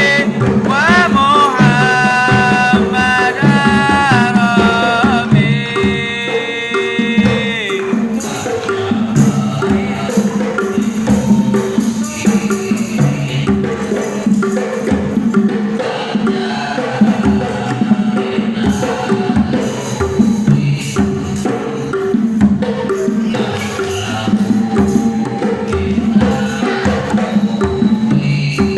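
Sholawat devotional singing: a single voice holds and ornaments a long melodic line for the first seven seconds or so, then the voice drops out and rhythmic hand-drum percussion carries the music on.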